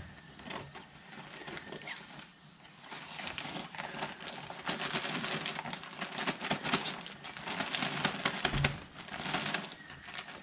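Plastic bags of potting mix and sand being cut open with grass shears and pulled at: a dense run of crinkling and crackling plastic, loudest in the middle, with a dull thump near the end.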